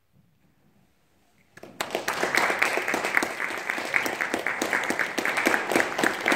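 Audience applause: many hands clapping together, starting suddenly about one and a half seconds in after a hush and then holding steady.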